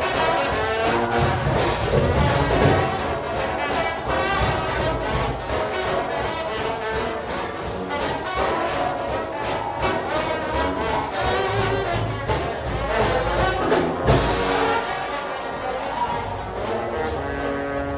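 A trombone shout band plays loud, fast brass gospel music over a steady driving percussion beat.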